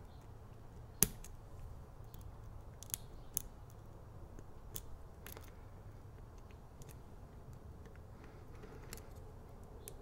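Faint, scattered small metallic clicks and scrapes of a probe working the pins of a Master Lock Street Cuffs tubular lock held under tension, with one sharper click about a second in.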